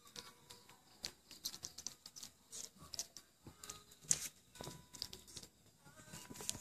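A kitten's wet mouth sounds: rapid, irregular soft clicks and smacks as it suckles formula from a bottle, then licks at spilled milk on a blanket.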